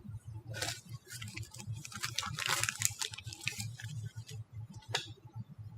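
Small metal parts scraping and clicking as a crimp butt connector is worked onto the cut end of a battery pack's bus bar, in a busy cluster for the first few seconds and one more click near the end, over a low steady hum.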